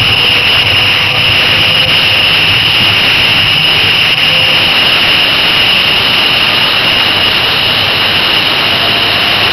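Steady rush of wind and road noise at highway speed, heard from a camera on an electric motorcycle driven by an EnerTrac hub motor. There is no engine note, only an even, unbroken roar of air and tyres.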